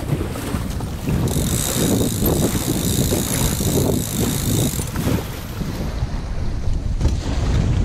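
Wind buffeting the microphone in gusts, with a steady high hiss and a faint whine for about three and a half seconds in the middle.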